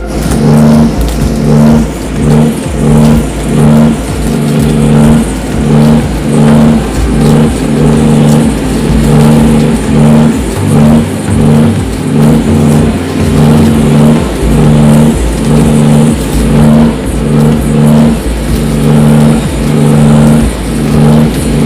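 Loud background music with a steady pulsing beat and a repeating low note pattern.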